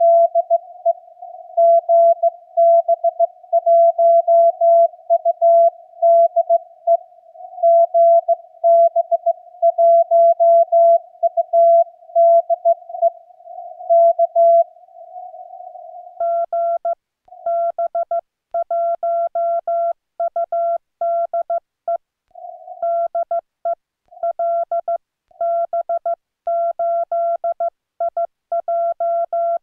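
Morse code (CW) at about 15 words per minute, a single steady tone near 650 Hz from a Yaesu FTDX10 transceiver. First comes the received station calling, with band hiss between the dots and dashes. About halfway through it switches to the operator's own clean sidetone as he keys a reply on a paddle, with silence between the elements.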